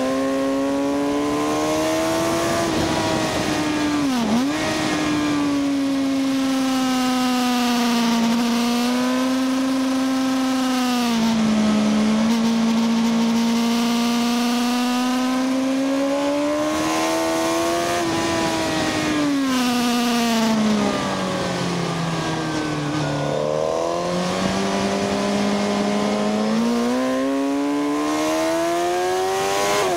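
Sport motorcycle engine at high revs on track, heard onboard with wind rush, its pitch rising and falling with throttle and gear changes. A sharp momentary dip about four seconds in, then a long drop as it slows and shifts down to second gear for a corner, before climbing again near the end.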